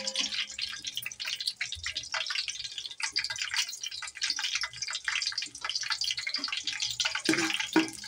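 Whole spices (cumin seeds, bay leaves, cinnamon, cloves) sizzling and crackling in hot oil in a metal pot, the seeds popping as they fry. Near the end a spatula stirs them with a couple of louder scrapes.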